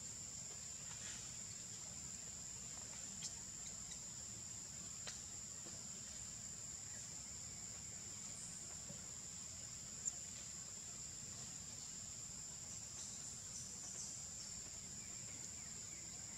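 Steady high-pitched drone of insects, a few faint clicks over it and one sharper click about ten seconds in.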